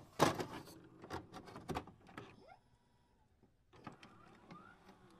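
Glitchy intro sound effects: a burst of static at the start, then sharp digital clicks and short rising whines.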